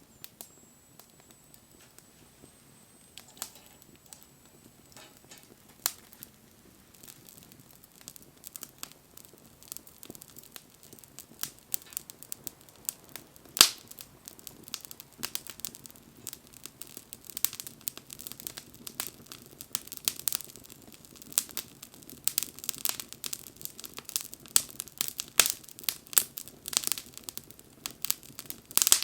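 Wood fire crackling and popping, the snaps sparse at first and coming thicker and louder through the second half, with one sharp loud pop about halfway through.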